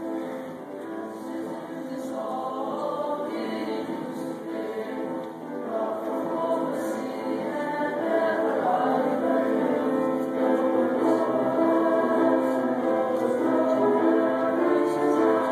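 Junior high school choir singing a sustained, many-voiced Christmas piece, growing louder about six seconds in and again around eight seconds.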